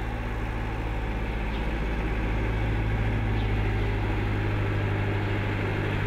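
Small tractor's engine running steadily at low revs as the tractor drives closer with a front-loader full of logs, growing slowly louder.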